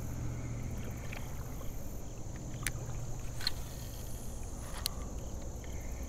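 Creek ambience: a steady high drone of insects over a low, steady rumble, with three faint clicks in the middle.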